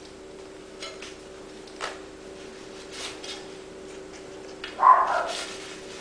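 Tire lever and road-bike tire bead sliding around an Easton rim, giving a few light clicks and scrapes as the bead is worked off. A short, louder sound about five seconds in stands out over a steady low hum.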